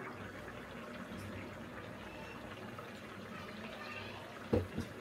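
Hot oil sizzling steadily as a rice-flour fritter deep-fries in a kadai. Two sharp knocks come near the end.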